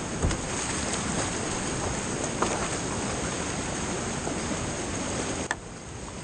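Creek whitewater rapids rushing around and under a kayak, with a few short sharp splashes or knocks; about five and a half seconds in there is a sharp click and the rush drops suddenly to a lower level.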